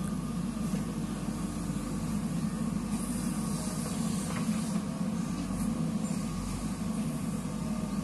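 JCB 3DX backhoe loader's diesel engine running steadily under load as the backhoe digs into a soil heap and lifts a full bucket.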